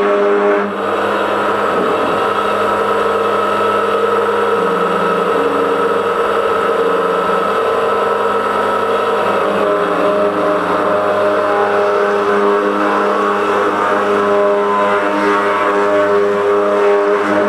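CNC router spindle running under load as its bit grinds a lattice pattern into an andesite stone slab: a loud, steady machine whine with several held tones and a brief dip about a second in.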